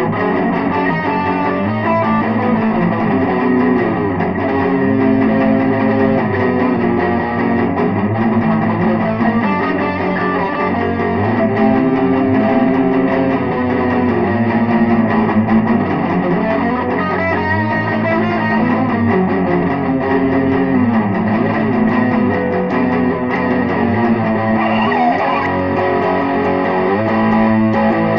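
Electric guitar playing an instrumental rock song with no vocals, at a steady loud level.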